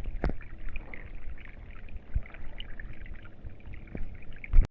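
Uneven low rumble of wind on the microphone, with faint trickling water and a few knocks from handling the phone.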